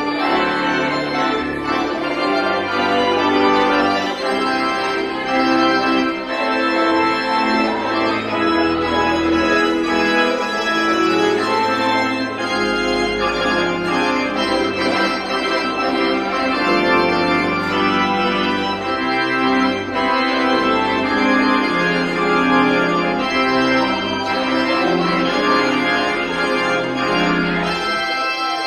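Church pipe organ playing sustained chords over low pedal notes, the harmony changing every second or so.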